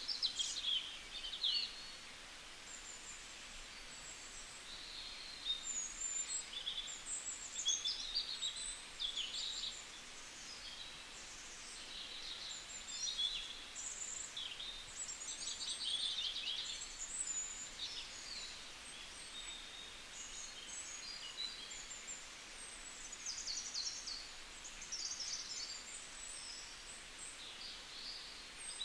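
Small birds chirping and twittering throughout, many short high calls overlapping over a faint background hiss.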